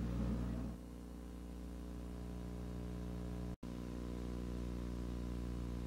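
Steady electrical hum from the VHS transfer, with no programme sound over it. The hum cuts out for an instant about three and a half seconds in.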